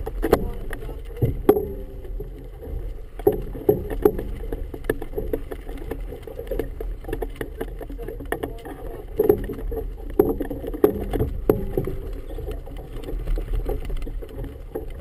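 Choppy harbour water slapping and sloshing against a boat's hull, a muffled low wash broken by frequent irregular knocks.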